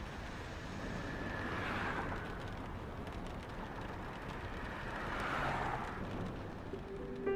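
Steady distant traffic noise, with vehicles swelling past twice, about two seconds in and again about five seconds in.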